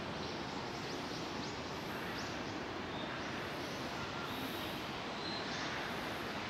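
Outdoor ambience: a steady hum of distant traffic with small birds giving short high chirps now and then.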